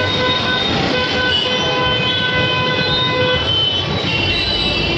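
Busy street traffic with a vehicle horn held in one long steady honk for about three seconds, briefly broken about a second in; shorter, higher horn tones follow near the end.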